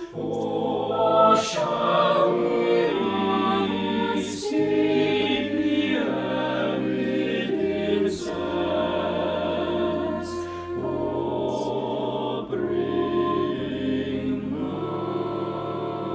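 A small mixed vocal group of six voices, men and women, singing a Christmas carol in harmony, the chords changing every one to two seconds, with sung consonants hissing through now and then.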